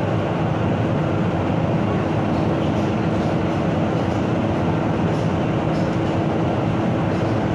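Inside the cabin of an MTR South Island Line S-train running through the tunnel: a steady rumble of wheels and air, with a constant hum throughout.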